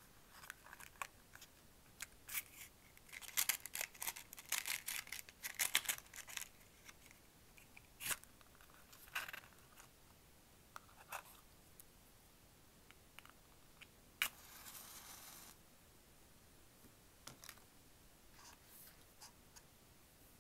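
A cardboard box of wooden safety matches is handled and opened, with a run of small scrapes and rattles, then single clicks. About two-thirds through, a match is struck on the box: a sharp scrape, then a hiss lasting just over a second as the head flares.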